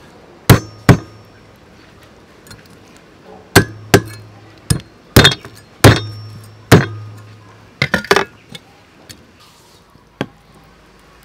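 Meat cleaver chopping down onto a round wooden chopping block, about a dozen sharp strikes in irregular clusters, some in quick pairs and threes, thinning out near the end.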